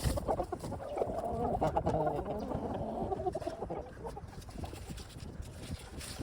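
Chickens clucking, a busy mix of short calls that is strongest for the first three seconds or so and then thins out.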